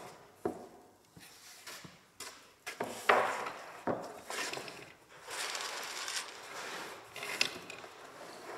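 Wooden boards and blocks handled on a wooden workbench: several sharp knocks of wood on wood, the loudest about three seconds in, then a board scraping and sliding across the bench top.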